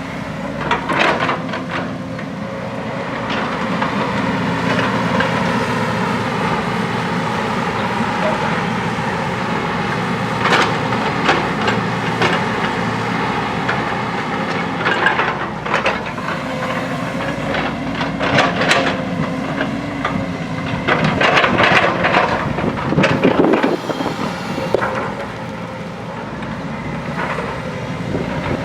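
JCB backhoe loader's diesel engine running steadily, with repeated clanks and scraping knocks scattered throughout as the machine digs, more of them in the second half.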